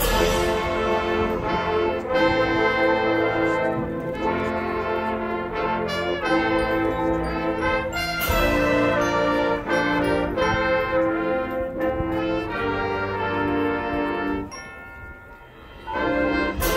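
Marching band brass section playing loud sustained chords, entering suddenly at the start and moving through a series of held chord changes. Near the end the sound drops away for about a second and a half, then the full band comes back in.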